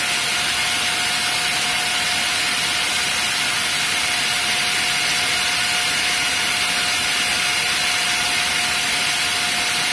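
Sanyo Denki San Ace 120 (9SG1212P1G03) high-speed 12 V fan running on about 9 volts: a steady rush of air with a steady humming tone over it.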